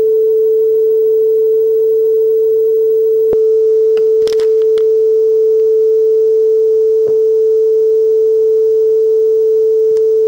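A 440 Hz test tone played from a tone tape on a Technics RS-676 cassette deck: one steady pure tone. It shows the tape speed is set close to correct, within about a hertz of 440. A few soft clicks sound over it about three to five seconds in and again around seven seconds.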